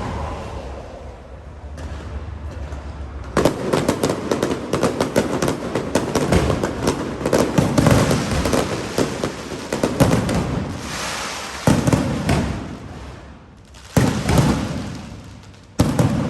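Aerial fireworks bursting overhead: after a quieter first few seconds, dense crackling and popping sets in, with several sharp, louder bangs in the second half.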